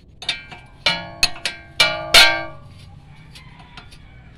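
Sharp metal-on-metal clinks, about six in the first two and a half seconds, each ringing on briefly, the loudest a little past two seconds in: tools and parts knocking against a car's front wheel hub and steering knuckle while the wheel bearing is taken apart.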